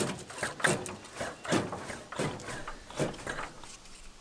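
A series of about five sharp metallic knocks and clunks, roughly one every three-quarters of a second, from the engine of an old riding lawn mower as it is handled at the top of the engine.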